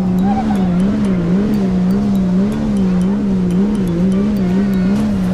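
Jet ski engine running steadily at speed, a loud drone whose pitch wobbles evenly up and down a few times a second.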